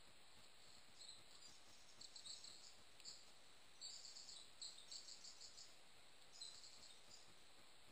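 Faint, high-pitched chirps of a small songbird in several short, trilled bursts at irregular intervals, over the steady hiss of a trail camera's microphone.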